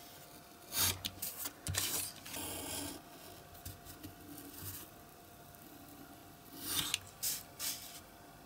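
Snap-off craft knife blade drawn along a steel ruler through printed card on a cutting mat: short scraping strokes about a second in and again near seven seconds, with light handling of the ruler and paper between them.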